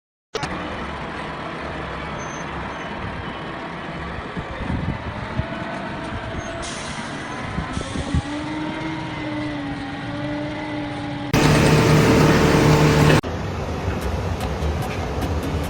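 A heavy vehicle or machine engine running, with a loud burst of noise lasting about two seconds, two thirds of the way in, that cuts off abruptly.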